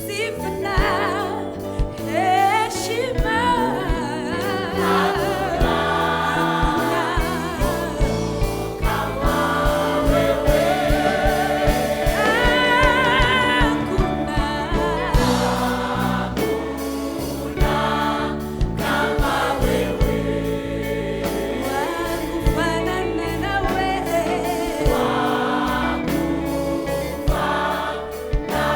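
Gospel worship music: a choir singing over a band with a steady drum beat.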